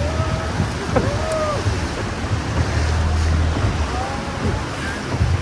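Small motorboat running with a steady low engine hum, choppy sea water sloshing and splashing around the hull and against the cliffs, and wind buffeting the microphone.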